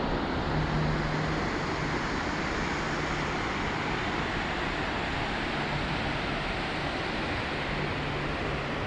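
A steady rushing noise, even and unbroken, with a faint low hum that comes and goes.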